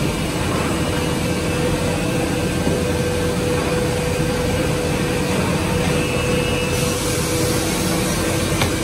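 Steady drone of woodworking CNC machinery running, with a constant mid-pitched hum over a rushing air noise from the dust extraction; the hiss brightens about seven seconds in.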